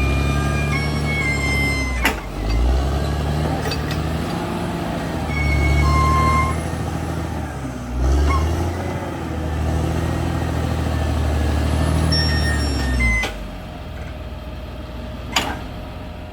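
Caterpillar D6R XL bulldozer working, its diesel engine running under load and dipping and picking up again about three times, with high squeals from the steel tracks and a few sharp clanks. The engine drops away to a lower running note about two-thirds of the way through.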